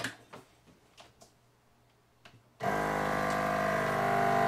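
A few light clicks, then about two and a half seconds in a vacuum sealer's pump starts suddenly and runs with a steady hum, drawing the air out of a bag of corn that is being sealed a second time.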